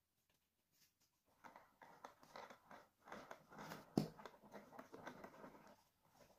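Metal offset spatula spreading soft cream cheese frosting over a cake, a faint irregular wet scraping and smacking starting about a second in, with one sharp knock about four seconds in.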